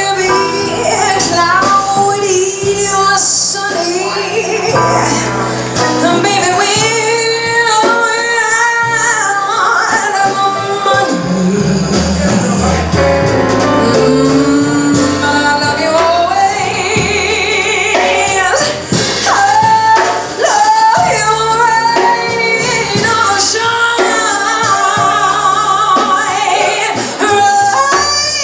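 Live jazz: a female singer with bass and drums, her voice gliding between long held notes with vibrato over changing bass notes and cymbals.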